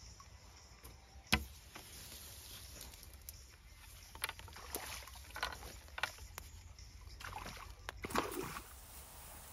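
Water splashing in a run of short bursts, with a single sharp knock about a second in.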